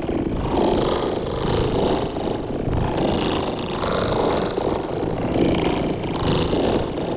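Synthesized sci-fi sound effect: a continuous rough, low drone that swells and eases about once a second.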